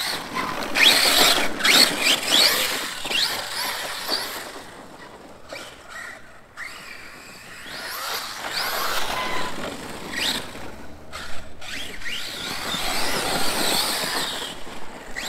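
Arrma Kraton 4S RC monster truck driving on dirt: its electric motor whines up and down in repeated throttle bursts over the hiss of tyres on the dirt. It is loudest in runs near the start and near the end, with a quieter stretch in the middle. The drivetrain is running a Mojave 4S centre differential fitted in place of the stock one.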